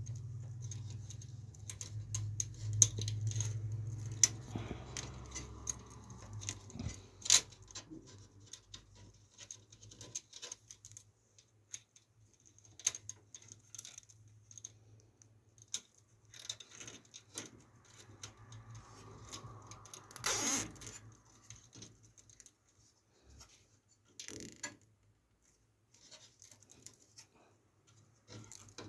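Scattered small clicks, taps and rattles of cables and plastic connectors being handled and fitted inside a computer case, with a louder scrape about two-thirds through. A low hum is strong for the first few seconds, then faint.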